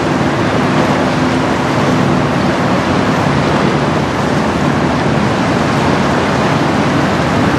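Steady rush of wind on the microphone over choppy water, with a faint low engine drone underneath.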